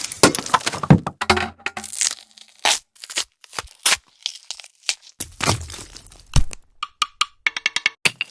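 A run of short organic-style interface sound effects, one after another: crackling, crunchy tearing snaps and sharp clicks. A crunchy swell ends in a hard knock about six seconds in, and quick clicks with a short pitched ring follow near the end.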